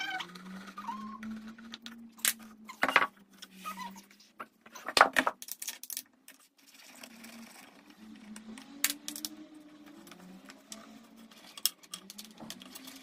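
Scattered metallic clinks and knocks of screws and a wrench being handled as a cat scratching post is taken apart, with the loudest cluster of knocks about five seconds in.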